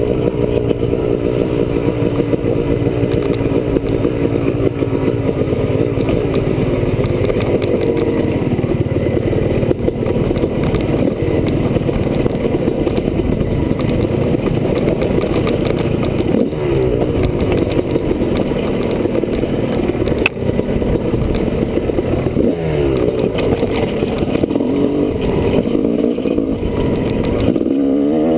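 Honda CR250R's single-cylinder two-stroke engine being ridden hard, its revs rising and falling again and again with throttle and gear changes.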